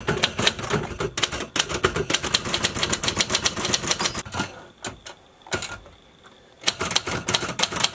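Manual typewriter being typed on: rapid runs of sharp key strikes, a quiet gap of about two seconds with a single strike, then more quick typing near the end.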